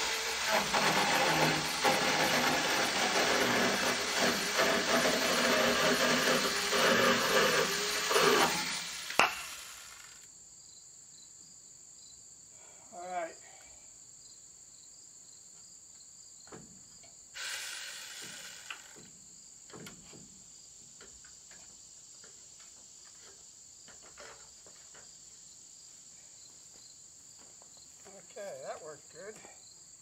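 Small 6-inch battery-powered chainsaw running and cutting through timber for about nine seconds, stopping with a sharp knock. Crickets then chirp steadily, with a few faint knocks.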